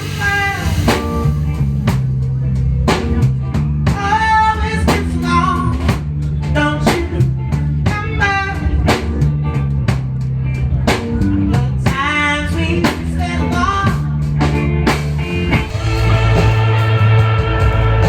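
Rock band music: drum kit, bass guitar and electric guitar, with a bending melodic lead line returning every few seconds. About three-quarters of the way through it turns louder, into held guitar and bass chords.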